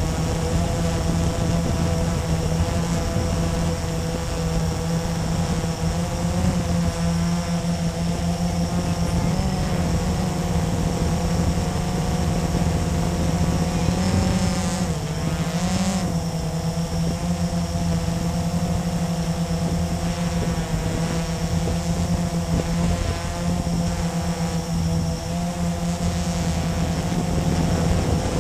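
Blade 350QX quadcopter's four brushless motors and propellers buzzing steadily in flight, recorded by the camera on board. The pitch wavers as the throttle changes, most clearly about halfway through.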